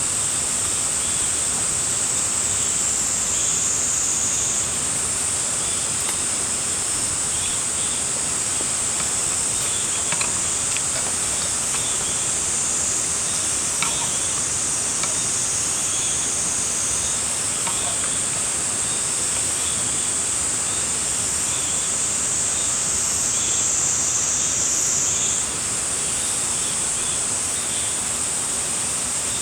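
Cicadas droning in a steady high chorus that twice dips lower in pitch and jumps back up, over the even hiss of rain. A couple of faint taps sound partway through.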